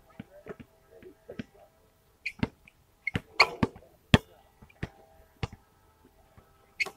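Basketball game on an outdoor court: a string of sharp thuds and bangs from the ball bouncing and striking the hoop, irregular and of varying strength, the loudest about four seconds in, with a few short high squeaks.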